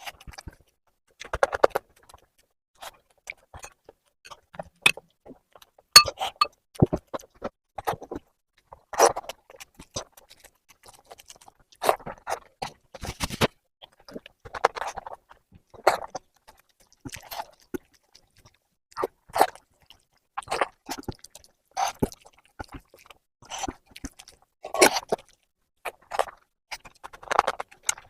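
Close-up eating sounds of mutton curry: irregular bouts of wet chewing and mouth smacking, broken by short pauses, with now and then a sharp click or clink.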